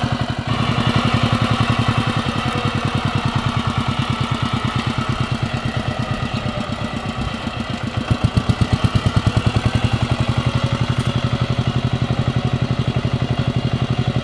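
Kamco power tiller's single-cylinder diesel engine chugging steadily in a rapid, even thud while it works. It drops a little in loudness in the middle and is louder again after about eight seconds.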